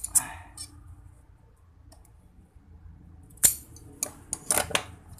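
Metal shears snipping a small strip of thin sheet metal to trim it to length: sharp snips just at the start, then a quick run of four or five from about three and a half seconds in.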